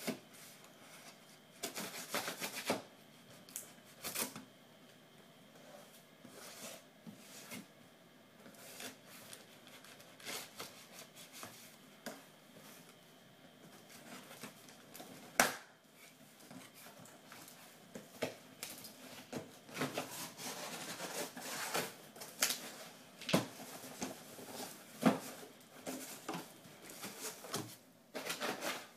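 Taped cardboard shipping box being opened by hand: packing tape crackling as it pulls away and the cardboard flaps scraping and rustling as they are pried up. Irregular scratchy crackles and clicks, with one sharp snap about halfway through.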